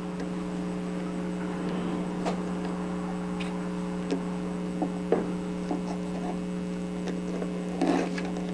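A steady electrical hum, with a few faint light clicks and taps scattered through it as small miniature bricks are handled and set onto a glued base.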